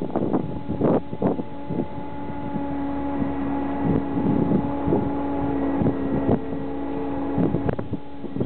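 Wind buffeting the microphone in repeated gusts. A steady engine-like drone runs under it from about two seconds in until near the end.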